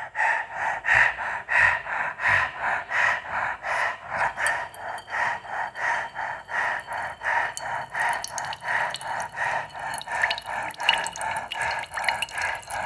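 Quick, even breaths in and out through an open mouth, about three a second, during a jala neti nasal wash with a neti cup. From about halfway on, water drips and trickles from the nose as the salt water runs through.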